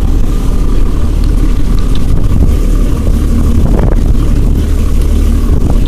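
Fishing boat's engine running under throttle: a loud, steady low rumble.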